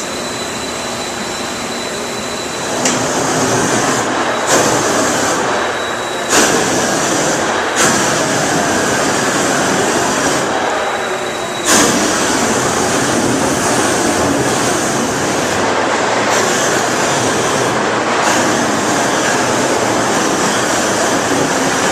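Large propane shrink-wrap heat gun running with a steady, loud roar, shrinking heavy plastic sheeting down over a tractor, with several abrupt changes in the noise along the way.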